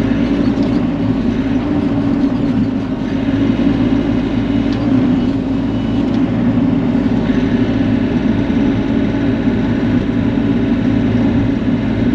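Bobcat E42 mini excavator's diesel engine running steadily at working speed.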